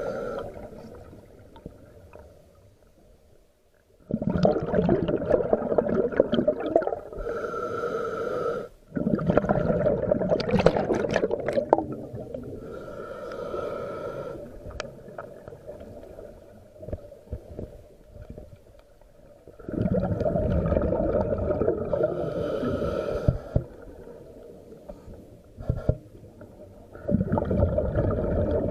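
Scuba diver breathing through a regulator underwater: a hiss on each inhale, then a loud rush of exhaled bubbles, several slow breaths with quieter gaps between them.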